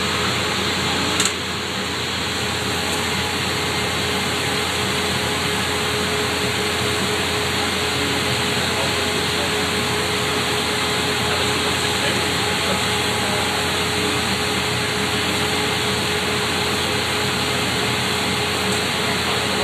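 Glass-blowing furnace and workshop fans running: a steady rushing noise with a faint steady hum, broken by one sharp knock about a second in.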